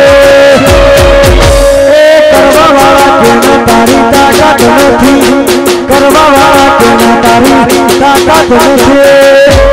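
Live Gujarati garba folk music: a fast, even rhythm of rattling percussion under a sustained melody line. A heavy low drum beat is strong at the start, thins out, and comes back strongly near the end.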